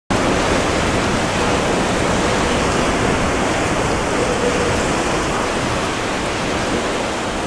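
Typhoon storm noise: a loud, steady roar of wind and heavy sea that cuts in suddenly.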